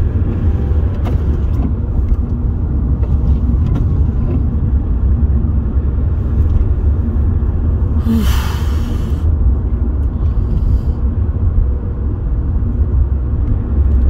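Steady low rumble of a car's engine and tyres heard from inside the cabin while driving on a snowy highway. A short rushing hiss comes about eight seconds in.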